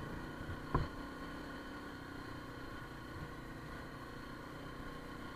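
Motorcycle engine running steadily, with one short knock about a second in.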